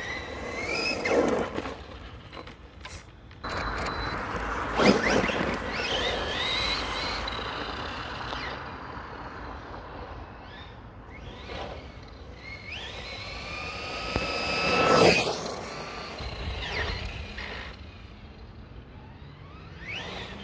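Brushless RC monster truck making high-speed passes: its electric motor whine climbs in pitch as it accelerates, then sweeps past loudest about a second in, again about five seconds in and once more about fifteen seconds in.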